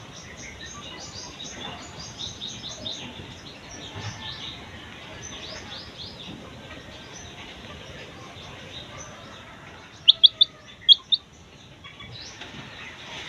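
Six-day-old chicken chick peeping: a run of faint, high chirps, then five loud, sharp peeps in quick succession about ten seconds in.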